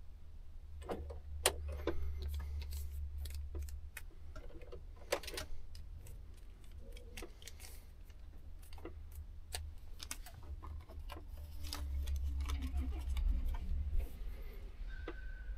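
Irregular clicks and taps as a finger works the dashboard touchscreen and controls in a Volvo FH truck cab, over a low rumble, with one short beep near the end.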